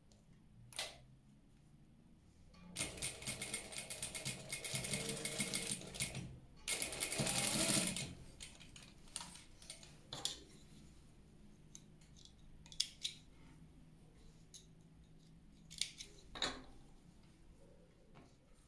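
Industrial single-needle lockstitch sewing machine running, stitching a fabric strap in two runs, one of about three seconds and a shorter one of about a second. Scattered light clicks and taps follow.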